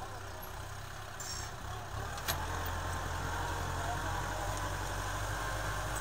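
Kubota M6040 tractor's four-cylinder diesel engine running steadily as it pulls a disc plough through dry soil, getting louder about two seconds in, with a sharp click at that moment.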